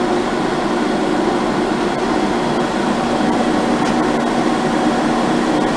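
Ohmiya OC-18 centerless grinder running with its grinding wheel and regulating wheel spinning under power: a steady machine hum with a few held tones.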